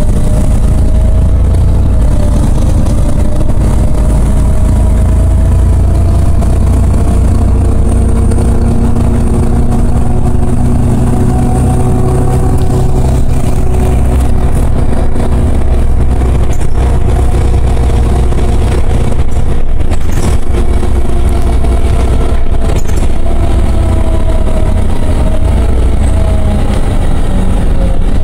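LiAZ 5292.60 city bus's rear-mounted diesel engine and drivetrain heard from inside the passenger cabin while driving: a steady low drone with a whining tone that rises and falls with speed. A few brief knocks come in the second half.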